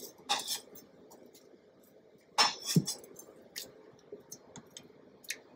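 A kitchen knife and cut apple cubes being handled on a bamboo cutting board: a few short knocks and clicks, the loudest cluster about two and a half seconds in.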